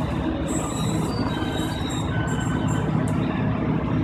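Class 153 diesel railcar's Cummins engine pulling away at low speed, heard from inside the carriage as a steady low rumble. Thin high-pitched wheel squeal comes and goes over it from about half a second in.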